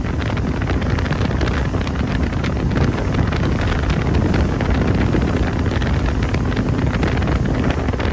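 Heavy wind buffeting the microphone over the steady running noise of a motorboat underway: a 1977 Cacci Craft with an Evinrude 85 hp outboard.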